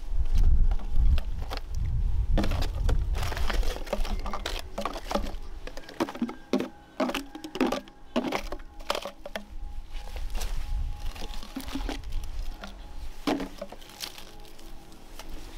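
Empty plastic water bottles crinkling and knocking together as they are picked out of a pile of dry litter, in a run of sharp crackles and clicks that is busiest in the middle. A low rumble runs through the first two seconds.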